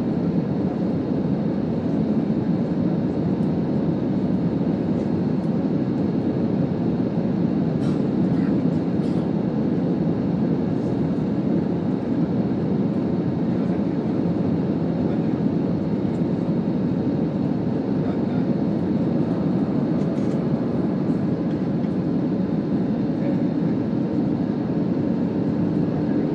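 Steady engine and air roar inside a commercial airliner's cabin during the climb after takeoff, a deep even rush with a faint steady hum and a few faint clicks.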